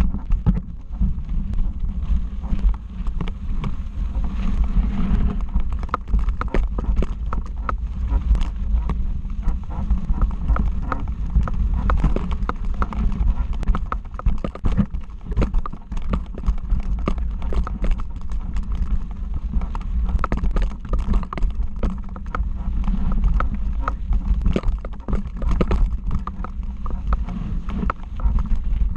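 Mountain bike rolling fast down a rocky dirt trail: tyres and bike clattering over stones and ruts in a dense stream of irregular knocks, over a steady low rumble.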